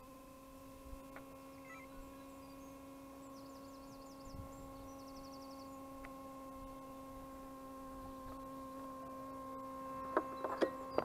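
Steady electric hum, one even pitch with overtones, slowly growing louder, from the radio-controlled mower's powered-up electronics: servos and wheelchair-motor speed controllers. A few sharp clicks near the end.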